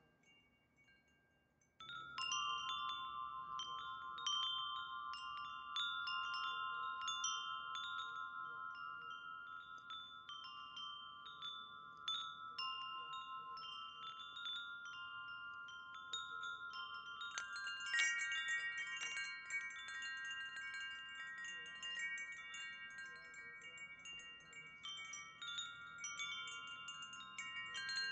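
Wind chimes ringing, struck again and again with the notes hanging on and overlapping. They start about two seconds in after near silence, and a brighter, busier cluster of high notes joins about two-thirds of the way through.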